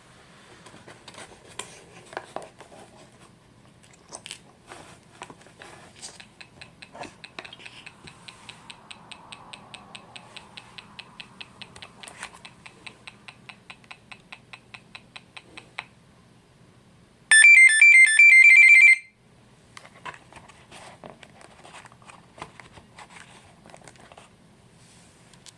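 Electronic beeping from the drone's flight electronics during ESC and motor troubleshooting: a steady train of light ticks about five a second for roughly ten seconds, then a loud, quick tune of high alternating beeps lasting under two seconds, with handling clicks before and after.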